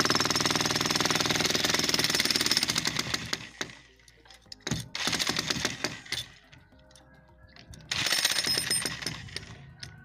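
Electric demolition breaker hammering at a reinforced-concrete roof slab, chipping the concrete away in rapid, steady blows. One long run of about three seconds, then two shorter runs with pauses between.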